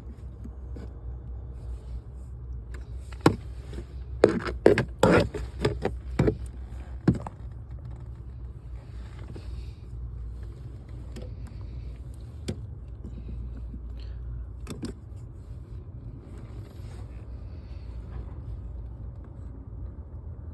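Pliers clicking and scraping against the plastic fuse panel as a 15-amp blade fuse is worked loose, a quick run of sharp clicks a few seconds in and a couple of single clicks later. Under it a steady low hum runs throughout.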